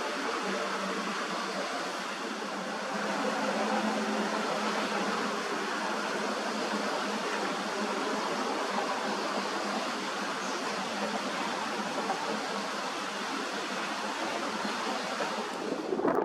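A steady rushing noise with a faint low hum in the first couple of seconds, ending with an abrupt cut.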